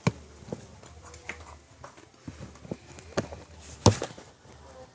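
A few light clicks and knocks from a container of cucumber face mask being handled while it is held up to pour, with one louder knock near the end. The mask is thick and slow to come out.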